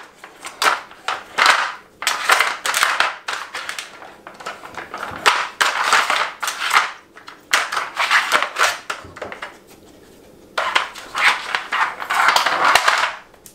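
Rottweiler puppy nosing and pawing a Dog Tornado puzzle toy: the stacked plastic layers spin and rattle, and the toy scrapes and clatters across the hard floor in irregular bursts, with a short lull about ten seconds in.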